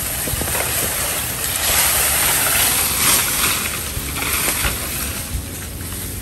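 Hand saw cutting through a tầm vông bamboo culm, a steady rasping noise that grows louder in the middle of the cut.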